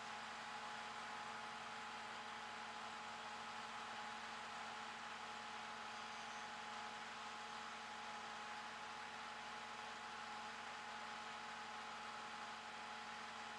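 Tow truck engine idling, a steady hum with a few constant tones.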